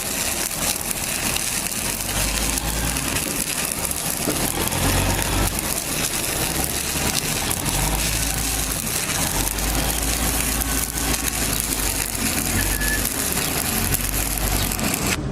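Stick (SMAW) welding arc crackling and hissing steadily while a bead is run, over a low engine-like hum.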